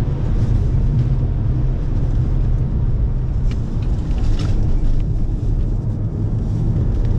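Audi car engine and tyre-road noise heard from inside the cabin at track speed: a steady, loud low drone while the car slows from about 146 to about 102 km/h into a corner. A couple of brief sharper sounds come near the middle.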